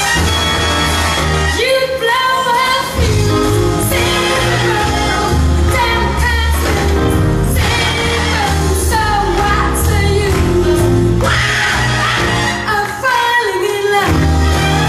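A recorded song with singing over a strong bass line, played through a hall's loudspeakers.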